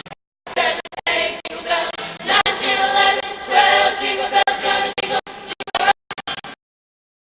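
High school choir singing together, the voices stopping about six seconds in.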